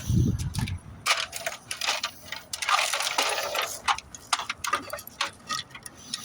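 Rummaging through a container of loose bolts and small parts: scattered metallic clinks and rattles with rustling, the noisiest about a second to four seconds in.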